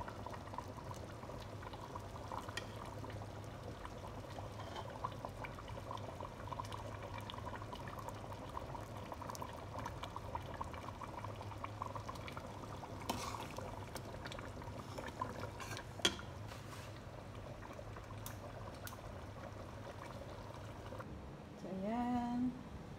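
Thick goat stew being ladled from a pot with a metal ladle: liquid pouring and dribbling over a steady background hum, with a few sharp clinks of the ladle about halfway through. Near the end a short rising tone sounds and then holds briefly.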